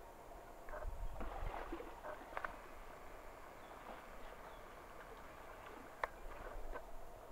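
Faint outdoor forest ambience with short chirps repeating now and then, a brief low rumble about a second in, and a couple of sharp clicks.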